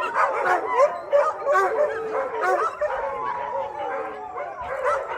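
A large chorus of dogs howling together, many howls overlapping at different pitches, with yips and barks mixed in during the first half. Later the long held howls take over, some of them slowly falling in pitch.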